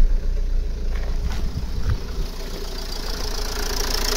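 Ford Focus common-rail diesel engine idling, freshly started, a bit loud, and growing louder near the end.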